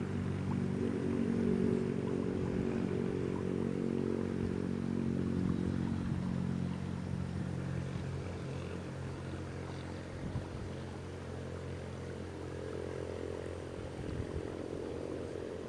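A small engine droning steadily. It dies down around the middle and builds again near the end, with a couple of soft knocks along the way.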